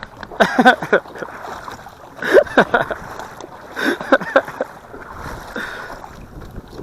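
Indistinct talking in three short bursts over a steady outdoor hiss, the voices stopping about two-thirds of the way through.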